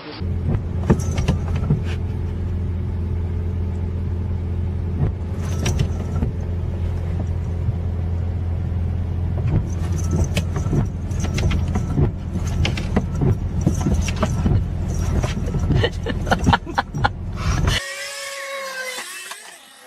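A steady low motor hum with scattered clicks and rattles, which cuts off abruptly near the end and gives way to a brief wavering high-pitched sound.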